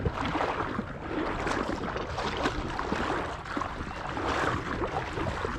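Shallow marsh water sloshing and swishing in uneven surges as a hunter wades through it.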